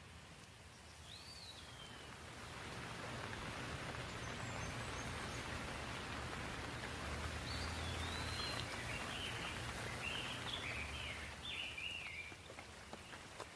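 Steady rain falling, swelling louder over the first few seconds. Birds call over it: one whistle about a second in and a run of short chirps in the second half.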